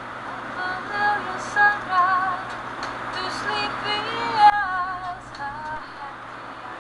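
Background music with a high, wavering vocal melody over a steady hiss.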